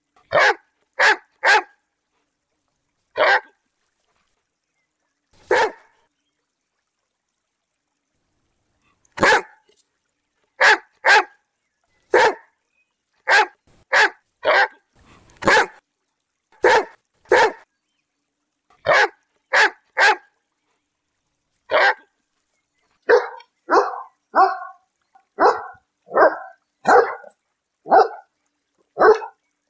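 A dog barking in short, single barks with pauses of up to a few seconds between them. Later it becomes a steadier run of about one to two barks a second.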